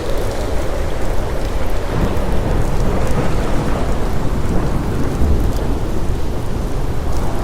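Ocean surf: waves breaking and washing in a steady, dense sheet of noise with a deep low rumble underneath.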